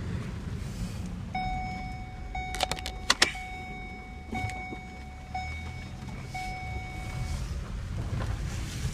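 Car sounds: a low steady engine or road rumble, and a steady electronic warning tone that runs for about six seconds with a few short breaks. A quick cluster of sharp clicks, like a door or latch being worked, comes a little under three seconds in.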